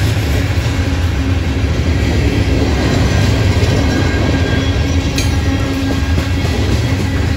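Loaded CSX coal hopper cars rolling past on steel rails: a steady heavy rumble of wheels on track, with a brief sharp metallic sound about five seconds in.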